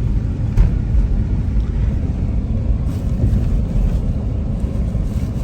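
A car driving along, with a steady low rumble of engine and road noise and a brief louder bump about half a second in.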